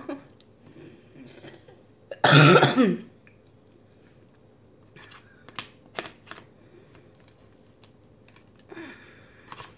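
One loud cough about two seconds in, lasting under a second. It is followed by scattered light clicks and scrapes of a metal spoon against an aluminium foil lasagna tray.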